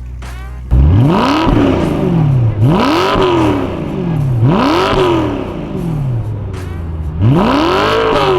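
BMW E92 M3's V8 engine and exhaust, idling and then blipped four times. Each rev climbs quickly and falls back to idle.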